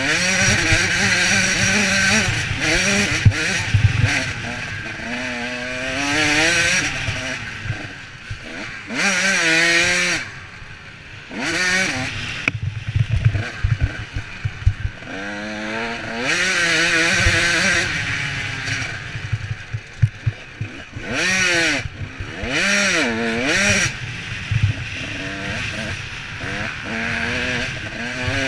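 Dirt bike engine revving hard and dropping off over and over as it is ridden along a rough trail, the pitch rising as the throttle opens and falling between bursts.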